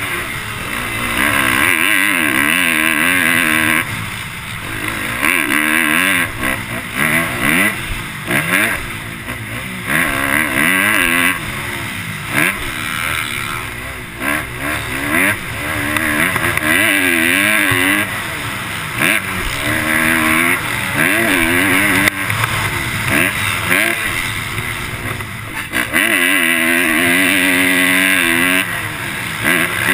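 Motocross dirt bike engine, heard from the rider's helmet camera, revving up and falling back again and again as the rider accelerates, shifts and rolls off through corners and over jumps.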